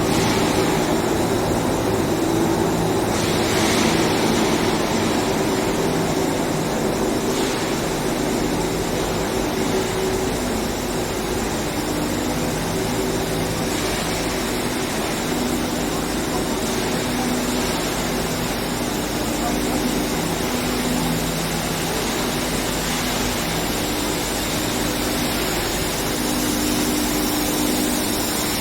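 Steady industrial running noise of a round-steel induction heating furnace line, with low hum tones that switch on and off every few seconds over a constant hiss.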